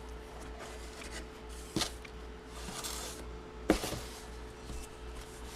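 Hands handling a box of packaged photos: faint rustling and sliding, with two sharp knocks a little under two seconds in and again about two seconds later, over a faint steady hum.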